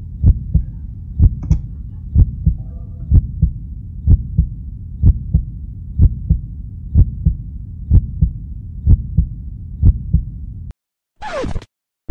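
Heartbeat sound effect: a slow, steady double thump, about one beat a second, cutting off suddenly near the end, followed by a brief sweeping sound effect.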